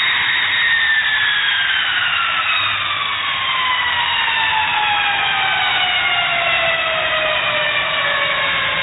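B-52H Stratofortress's jet engines whining, the pitch falling steadily and smoothly over several seconds as the turbines spool down, over a steady low rumble.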